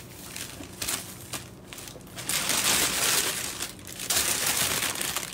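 Plastic bag crinkling and rustling as it is handled and rummaged through, scattered crackles at first, then louder and more continuous from about two seconds in.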